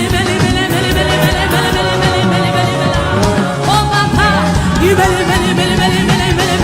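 Live gospel worship music: a voice singing a gliding, ornamented melody over a band with steady bass and drums.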